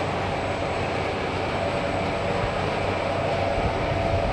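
Heavy-duty shrink-wrap tunnel running: steady noise of its fans and roller conveyor.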